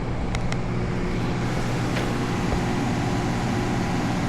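Portable generator engine running steadily with an even hum, with a couple of light clicks about half a second in.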